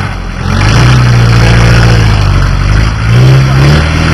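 Off-road 4x4 truck's engine running hard and revving, its pitch rising about a second in and again near three seconds in.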